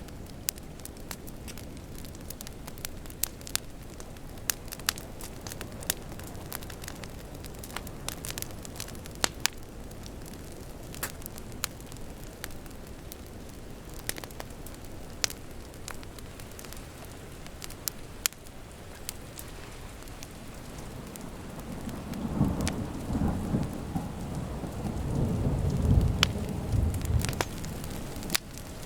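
Wood fire crackling with sharp pops over a steady hiss of rain. About two-thirds of the way in, a low rumble of thunder builds and peaks near the end.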